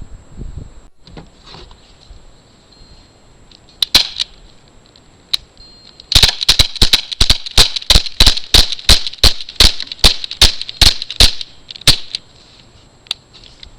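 CO2 BB pistol firing: a single shot, then a rapid string of about twenty semi-automatic shots at roughly three a second.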